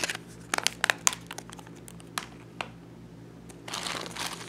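A handful of sharp plastic clicks and taps as a mobile phone is handled, then, from about three and a half seconds in, a plastic mailer bag crinkling as a hand rummages in it.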